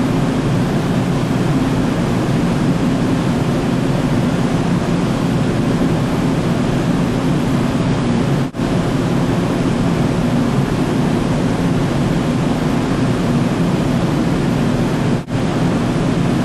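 Steady drone of a large ship's machinery heard on its deck: an even, loud rushing noise over a low hum. It drops out for a split second twice, about halfway through and near the end.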